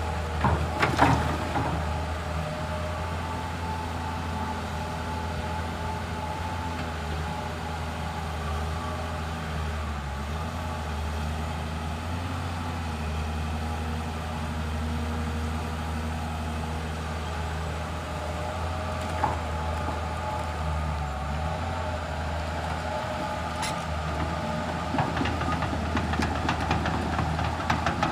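Komatsu PC210 hydraulic excavator's diesel engine running steadily, with sharp clanks and knocks about a second in, twice more midway, and a spell of clattering near the end.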